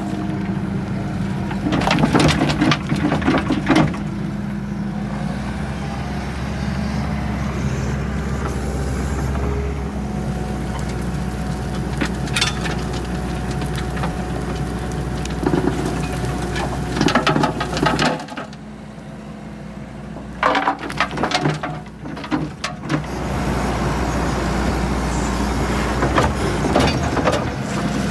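Skid steer engine running steadily while a screening bucket attachment works through topsoil and decayed wood chips, with repeated bursts of rattling and clattering. The engine hum drops away for a few seconds past the middle, then comes back.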